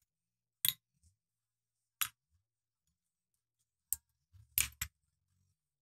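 Small steel lathe parts, screws and spring clips from the saddle, clinking as they are taken off and handled: a few single sharp clinks about a second or two apart, then a quick cluster of clinks near the end.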